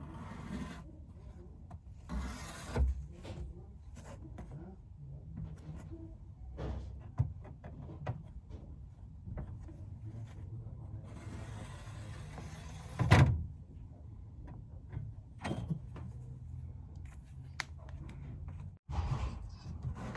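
Scattered rubbing and scraping with occasional knocks over a low steady hum, the loudest a sharp knock about two thirds of the way through.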